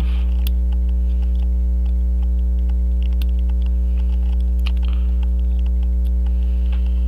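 Steady electrical mains hum throughout, with faint, scattered small clicks of metal tools working on the watch movement.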